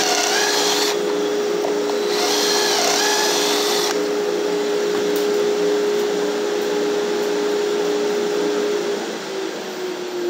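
A dust collector hums steadily through the pocket-hole jig's hose while a drill bores pocket holes twice. Each time there is a high motor whine for about a second or two that dips in pitch as the stepped bit bites into the wood. Near the end the dust collector is switched off and its hum falls in pitch as it winds down.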